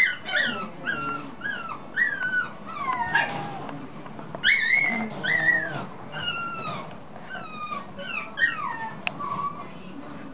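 Seven-week-old long-haired Chihuahua puppy whimpering: a string of high yelps, each falling in pitch, about one or two a second, with a short pause about four seconds in.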